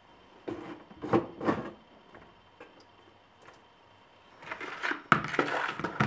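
Household items being handled in a kitchen: three short knocks or scrapes in the first two seconds, then a busier run of clattering and rustling near the end.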